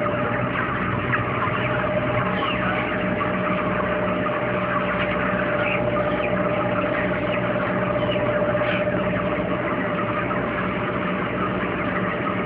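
Steady machine hum in an intensive broiler shed, with a crowded flock of chickens giving short cheeps and clucks throughout.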